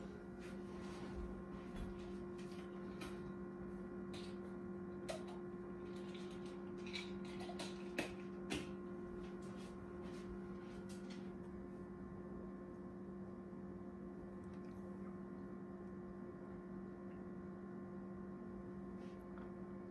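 Steady low background hum, with scattered faint clicks and knocks in the first half and a few more near the end.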